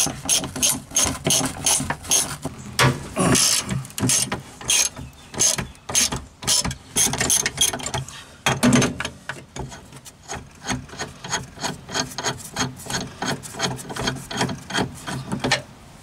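Hand ratchet with a T50 Torx bit clicking in rapid repeated strokes as seat belt anchor bolts are backed out. The clicks come closer together in the second half.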